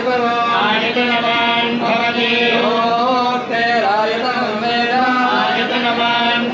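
Male voices chanting Vedic mantras in a steady recitation, over a continuous held tone underneath.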